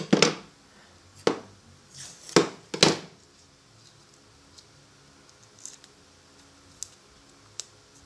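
Steel hand sickles being picked up and handled, clinking and knocking: four sharp strikes in the first three seconds, then a few faint ticks.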